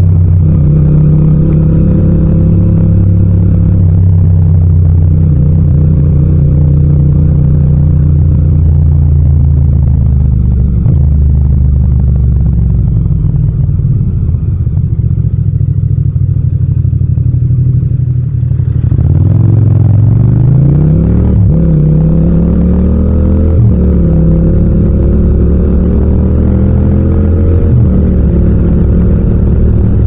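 Yamaha MT-07's parallel-twin engine heard from the rider's seat: running steadily at first, then dropping to a low idle through the middle. It then revs up through the gears with rising pitch and a short dip at each upshift, and settles into a steady cruise near the end.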